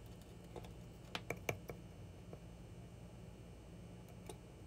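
Small clicks and taps of a soldering iron and wire lead against a charger's circuit board while a wire is desoldered: a quick cluster of about three clicks a little over a second in, then scattered faint ticks over a low steady hum.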